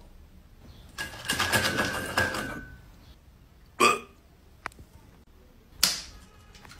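Pet hedgehogs at a food bowl: a rasping, clicking burst about a second in, then two short sharp huffs near four and six seconds, as the disturbed hedgehog curls up defensively.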